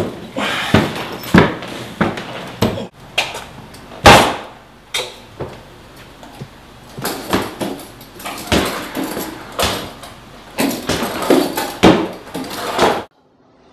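Footsteps thudding up a stairway while carried suitcases knock against the steps and banisters: irregular thumps about twice a second, with one loud bang about four seconds in. The thumping stops abruptly near the end.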